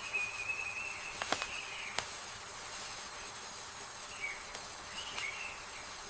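Forest ambience: a steady high hiss of insects with a few short wavering chirps, and now and then a sharp click.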